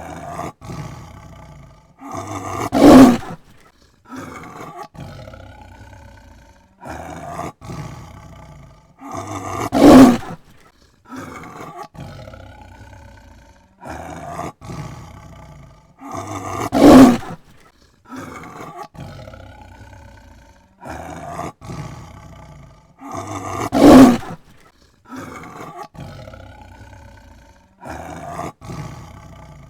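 A tiger roaring: four loud roars spaced evenly, about seven seconds apart, with quieter, lower calls in between.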